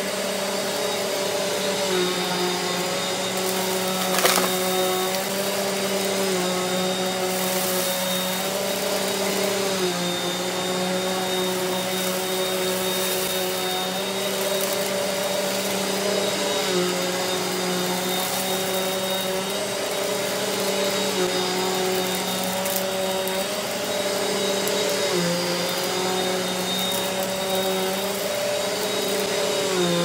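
Eureka AirSpeed corded upright vacuum cleaner running on carpet: a loud, steady motor hum whose pitch steps slightly up and down every few seconds, with one sharp click about four seconds in.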